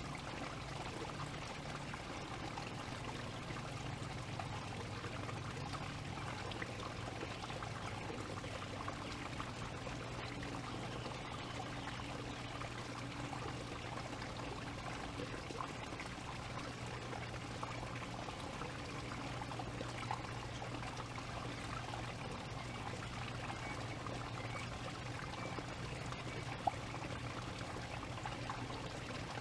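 Steady rushing, water-like background noise with a low steady hum underneath, and a single sharp click near the end.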